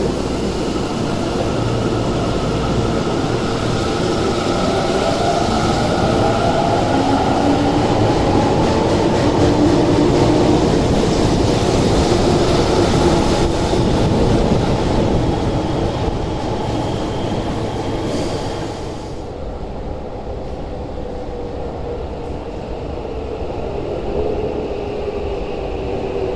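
Tokyo Metro 10000 series subway train pulling out of the station: its motor whine climbs in pitch as it speeds up, over a heavy rumble and clicking wheels. About nineteen seconds in the sound drops off sharply as the train leaves, and a lower rumble remains.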